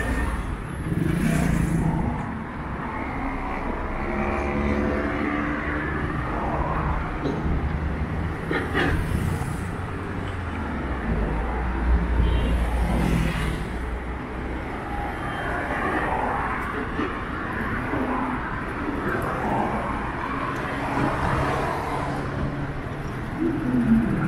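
Road traffic passing close by: car, van and motorcycle engines with tyre noise, swelling and fading as vehicles go past.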